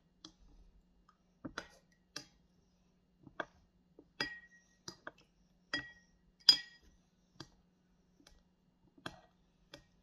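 Black plastic spoon tapping and scraping against a ceramic soup bowl while stirring: a dozen or so separate, uneven clinks, several ringing briefly, the loudest a little past the middle.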